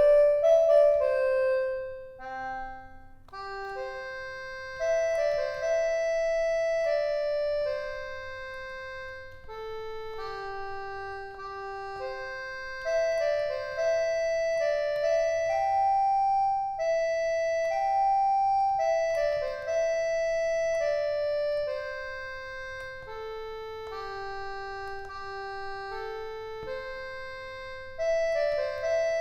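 A melody played on an EASYPLAY 1s compact keyboard through one of its built-in sound presets, an organ-like tone whose notes hold steady and stop cleanly, in short phrases with brief pauses.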